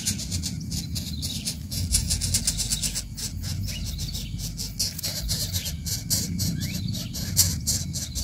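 Coucal chicks begging at the nest as the adult feeds them: fast, raspy, high-pitched pulses that swell and fade, over a low rumble.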